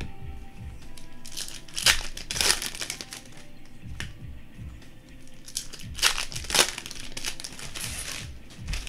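Foil wrappers of Panini Optic basketball card packs crinkling and being torn open, loudest about two seconds in and again about six seconds in, with music in the background.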